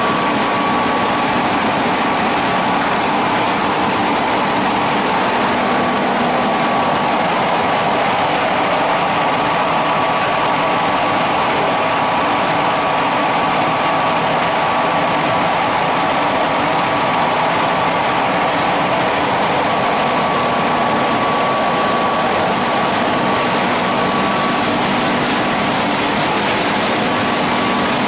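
Hydraulic 8 ft spindle veneer lathe running, peeling face veneer from a log: a steady, unbroken machine noise with a constant high whine through it.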